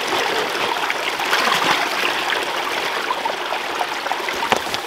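Shallow rocky stream trickling and babbling steadily over stones.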